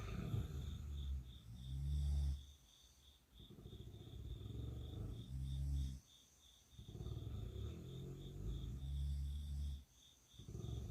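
A girl snoring: three long, low snores, each two to three seconds, with short quiet breaths between them and a fourth snore starting near the end.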